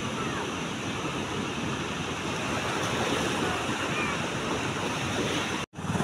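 Steady rushing noise of wind and river water, cutting out for an instant near the end.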